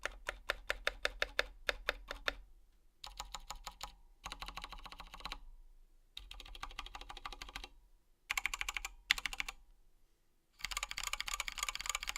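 Typing on a KBD19x mechanical keyboard with Zealio tactile switches, XDA-profile Godspeed keycaps and lubed stabilizers. It starts with a run of separate, evenly paced keystrokes, then comes in fast bursts of typing with short pauses between.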